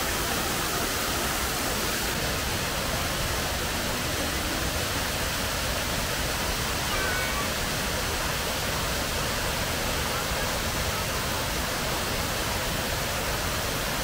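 Shiraito Falls, thin streams of water spilling over a wide rock face, making a steady, even rush of falling water.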